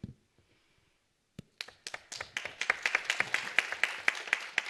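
Small group of people clapping, starting about a second and a half in and quickly filling out into steady applause with individual claps distinct; a single soft thump at the very start.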